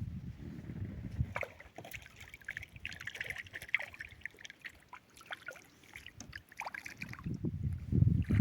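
Water splashing and sloshing, with scattered small clicks and knocks and a low rumble at the start and again near the end.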